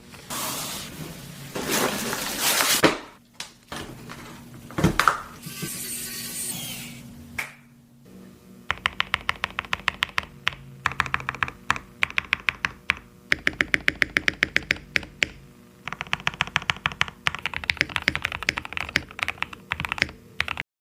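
Typing on a mechanical keyboard fitted with Gazzew Boba U4T tactile switches. Fast runs of keystrokes fill the second half and stop suddenly at the end. The first few seconds hold a denser burst of noise and a few separate strokes.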